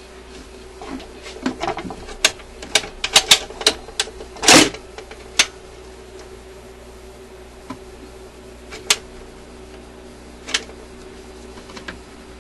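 Admiral suitcase record player's freshly cleaned and oiled record changer cycling, its motor humming steadily while the changer mechanism clicks and clacks. A louder clunk comes about four and a half seconds in as a record drops onto the platter, followed by a few scattered clicks.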